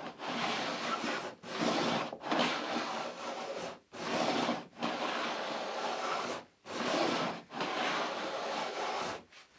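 A hand tool worked back and forth on wood in about seven long rubbing strokes, each lasting about a second with short gaps between, stopping shortly before the end.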